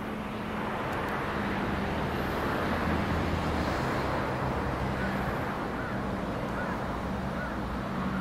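Steady rush of outdoor vehicle traffic with a low hum running under it, swelling a little over the first two seconds.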